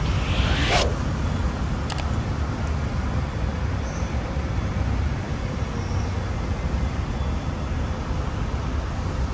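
Steady noise of city road traffic, low and even, from cars and buses on the street. A short hiss near the start ends in a sharp click.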